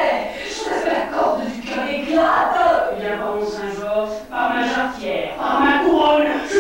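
Actors' voices delivering stage dialogue, with a short break about four seconds in.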